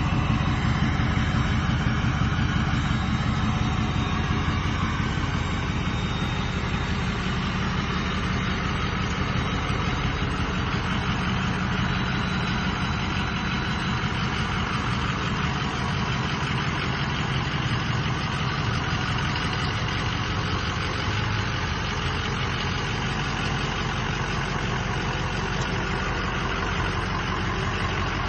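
Ford Super Duty pickup truck's engine idling steadily, slightly louder in the first few seconds.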